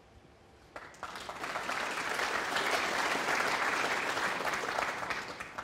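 Audience applauding, starting about a second in after a couple of faint clicks, swelling and then dying away near the end.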